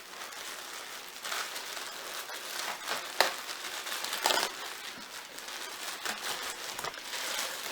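Packaging crinkling and rustling as it is handled, with two sharper crackles about three and four seconds in.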